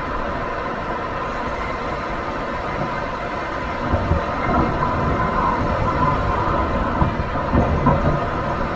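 Nissan Serena C25 minivan being driven, steady road and tyre rumble, with a few short low thumps about four seconds in and several more near the end.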